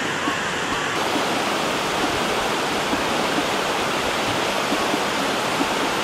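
Steady rush of a waterfall cascading down a sloping rock face, along with the shallow river running over its rocky bed below.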